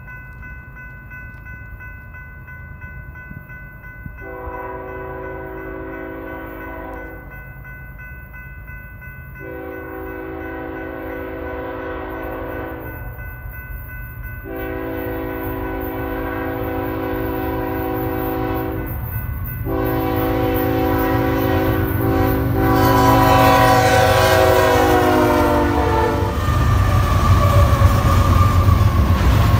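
BNSF freight locomotive's air horn, several notes sounding together, blowing a series of long blasts as the train approaches. The last blast is held longest and drops in pitch as the locomotive goes by, and then the loud rumble and clatter of the intermodal cars rushing past takes over.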